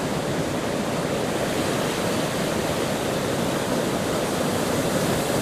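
Steady rush of water as the river flushes out over shingle at its mouth, mixed with heavy surf breaking on the sea beyond.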